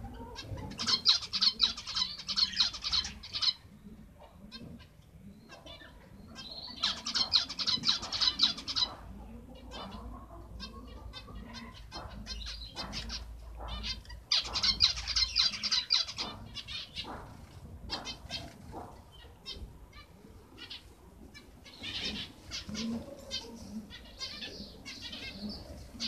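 Zebra finches chirping in four bursts of rapid high notes, each lasting two to three seconds, with scattered light clicks between them.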